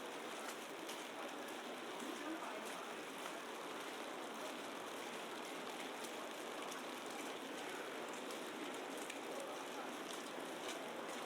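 Steady hiss and patter of falling wet snow, with faint scattered ticks of flakes or drops landing.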